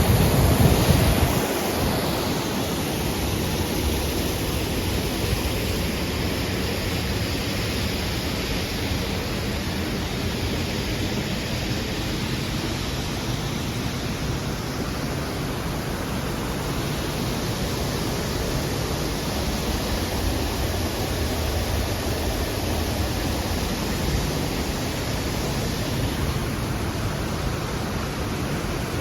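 Steady rushing of the Cheonggyecheon's flowing water, an even hiss, with a brief low rumble of wind on the microphone in the first second or two.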